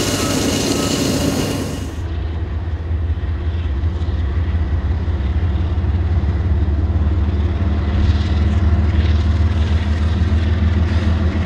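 Freight train diesel locomotives passing close, a dense rush of engine and wheel noise for about the first two seconds. Then Canadian Pacific diesel-electric freight locomotives approach slowly, their engines a steady low drone that grows louder.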